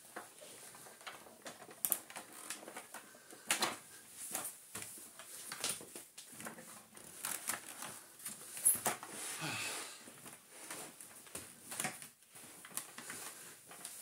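Irregular clicks, taps and knocks of an upright vacuum cleaner's plastic parts being handled, with the motor off; the loudest knock comes about two-thirds of the way in.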